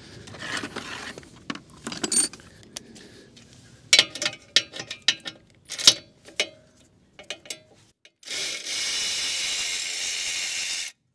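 Hand tools at work on the car's front cross-member bolts: a run of sharp metallic clicks and clinks, like a socket ratchet. Then, about eight seconds in, a steady rushing noise that lasts nearly three seconds and cuts off suddenly.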